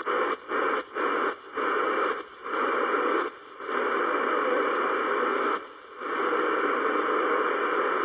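Static hiss from a portable radio's speaker as its tuning dial is turned by hand between stations. The hiss cuts out briefly about six times in the first six seconds, then runs steadily.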